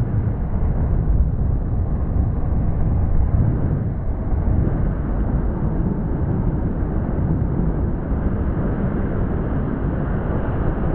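Steady rushing rumble, heaviest in the low end, from wind on the microphone and skateboard wheels rolling on pavement during a fast downhill skateboard run.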